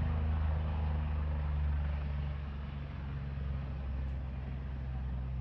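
Helicopter running steadily, a deep hum with a fast low pulsing, easing off a little toward the end.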